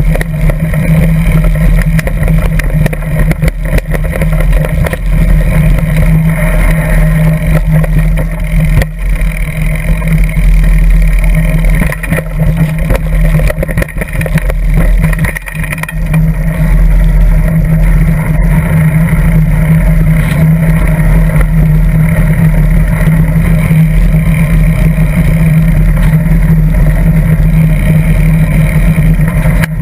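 Loud, steady rumble and wind noise of a mountain bike being ridden over grass and rough ground, picked up by a GoPro camera clamped to the seat post. It dips briefly about halfway through.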